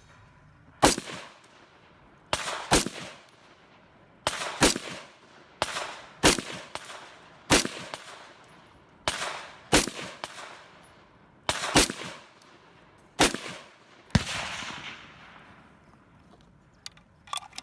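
Gunfire on a shooting range: about sixteen sharp shots at irregular intervals, several in quick pairs, each followed by a fading echo.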